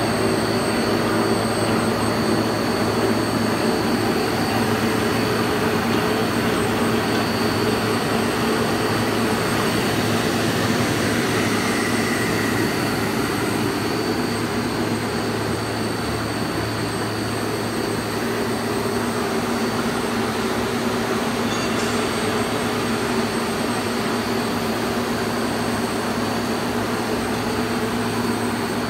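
A high-speed film blowing machine with an inline two-colour flexographic printer running steadily: a constant machine hum with a steady high-pitched whine over it as the motors and rollers turn.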